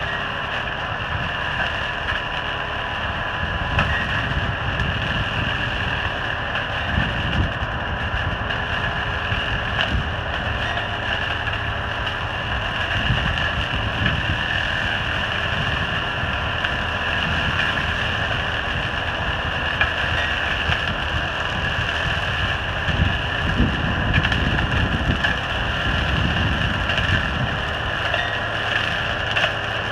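Valtra N111 tractor running steadily, driving a Spearhead reach-arm flail hedge cutter as it trims a hedge, with a constant whine from the spinning cutter. Wind buffets the microphone in uneven low gusts.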